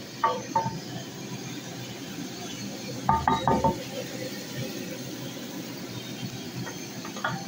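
Wooden spatula stirring thick taro-root (arvi) gravy in a steel pot, clinking against the pot a few times. The loudest knocks come in a short cluster about three seconds in, over a steady low hiss.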